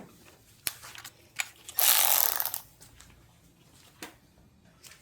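Hand tools working on an engine: a few sharp clicks and knocks, and a short loud burst of rapid mechanical noise about two seconds in.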